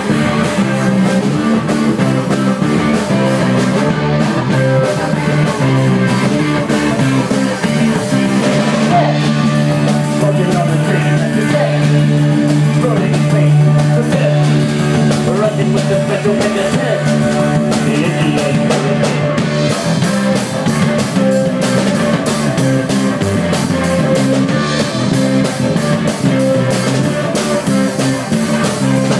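Live rock band playing at a steady loud level, with electric guitar over a sustained bass line.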